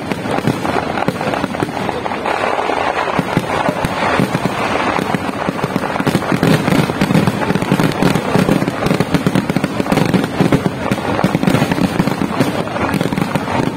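Dense barrage of aerial fireworks: shells bursting overhead in rapid, continuous, overlapping cracks and bangs with no pause.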